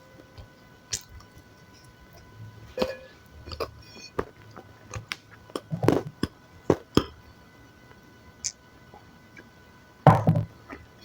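Close-miked eating sounds: scattered soft mouth clicks and smacks, with a few louder bites about six seconds in and again near the end.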